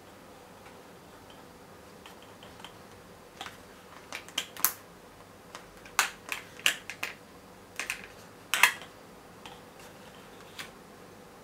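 Irregular sharp clicks and taps of small hard objects being handled, about a dozen, bunched in the middle and loudest around the middle, over faint room hiss.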